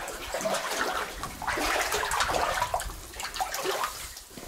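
Boots sloshing and splashing through shallow water on the floor of a mine tunnel, in irregular steps.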